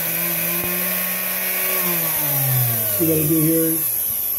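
Hobart-built KitchenAid K45 stand mixer's motor running fast with a steady whine while its speed-governor contacts are shorted out, so it runs directly across the line. About two seconds in the pitch falls as the motor slows back to its governed low speed.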